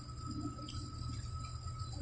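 Steady low hum from a package heating and air-conditioning unit energized on a call for heat, with thin steady high-pitched tones above it.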